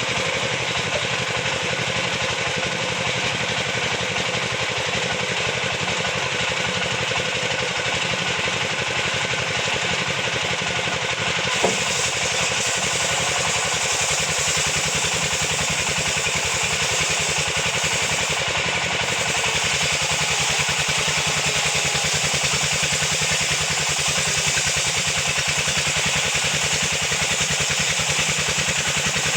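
Sawmill machine's engine running steadily, with one sharp click about twelve seconds in.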